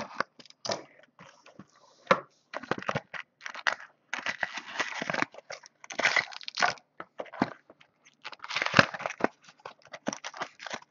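Foil baseball-card pack wrappers being torn open and crumpled by hand, with irregular crinkling and tearing throughout.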